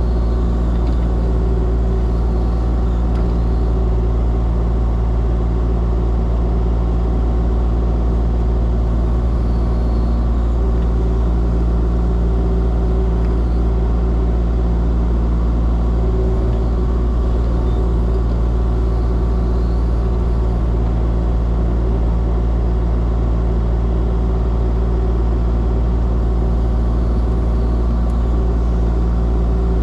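Diesel engine of a compact excavator running steadily under work, a low, even drone that holds the same pitch throughout.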